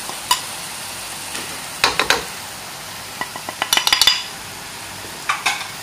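A cooking utensil stirring and clinking against a wok while blended shallot, garlic and ground spice paste sizzles faintly in oil. The clicks come singly and in pairs, with a quick run of clinks a little past the middle.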